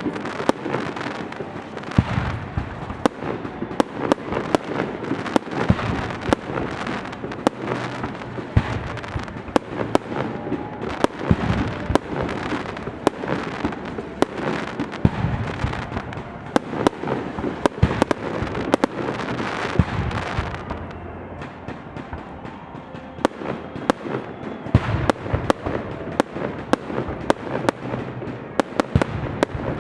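Aerial fireworks display: a dense run of sharp bangs and crackling bursts several times a second, easing off for a few seconds about two-thirds of the way through before picking up again.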